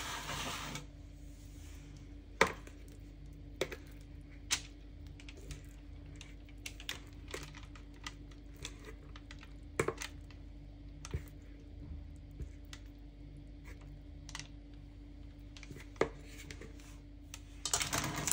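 Spatula scraping and tapping against a mixing bowl as thick chocolate cake batter is poured into a parchment-lined baking tin: scattered light clicks and knocks over a faint steady hum. Baking paper crinkles near the end.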